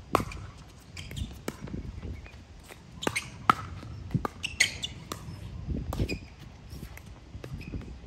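Pickleball rally: paddles striking the hard plastic ball, giving a dozen or so sharp pops at irregular intervals, some with a brief hollow ring. Short high squeaks come between the hits.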